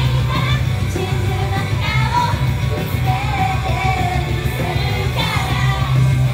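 Live J-pop idol song with rock backing played loud through a club PA, with female voices singing over a strong, steady bass and drums.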